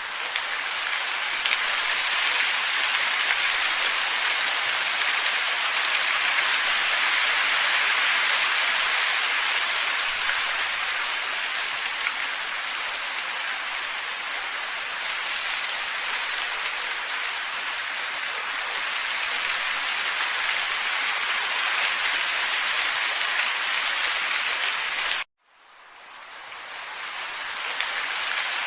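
Steady, even hiss of a wind ambience track, mostly high with little low rumble. It cuts out abruptly near the end and fades back in over a few seconds.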